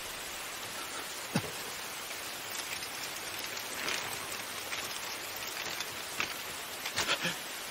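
Steady rain falling, with a few sharp clicks standing out from it, one about a second and a half in and several close together near the end.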